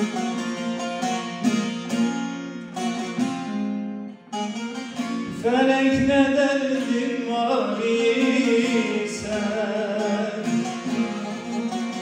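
A bağlama (long-necked Turkish saz) plays a plucked melody that breaks off about four seconds in. A man's voice then enters, singing long, wavering held notes of a Turkish folk song over the saz accompaniment.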